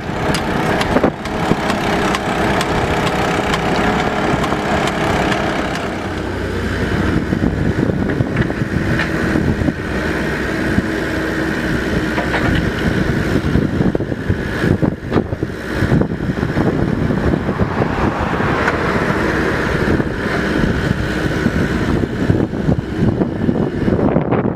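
Mini excavator's diesel engine running steadily as the machine works. A higher steady whine joins in after a few seconds, and there are a few sharp knocks around the middle.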